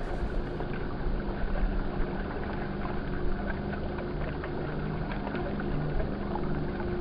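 Pro Boat Volere 22 RC model speedboat running on choppy water: a steady motor hum with a few held tones, over a dense rumble of wind and water noise.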